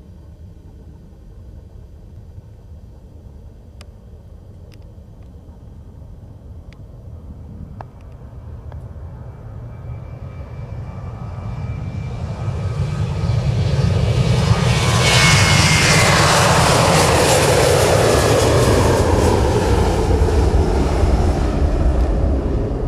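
Boeing 737 jet engines at takeoff power: a low distant rumble that builds over about ten seconds into loud jet noise as the airliner rolls by and lifts off, with a whine that falls in pitch as it passes.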